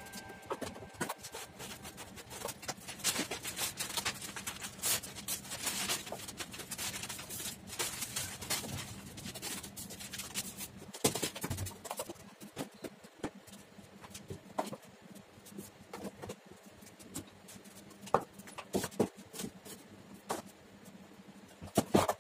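Rustling of a plastic bag and newspaper with small clicks, thinning about halfway through to scattered light knocks of plastic containers being set down on a kitchen shelf, a few sharper knocks near the end.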